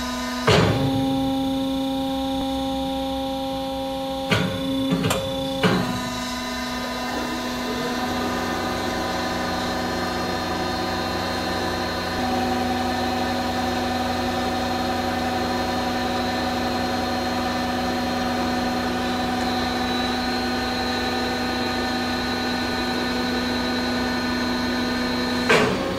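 Ercolina Mega Bender 030 mandrel tube bender running with a steady machine hum. A few sharp metallic clunks come in the first six seconds. From about eight seconds in a deeper running sound joins as the machine draws 2-inch, .065-wall steel tube around the die toward a 180° bend, and one more clunk comes near the end.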